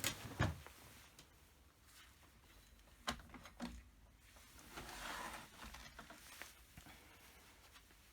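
A few sharp clicks and knocks of small metal parts and tools being handled, two near the start and two around three seconds in, with a soft rustling stretch later, against a quiet room.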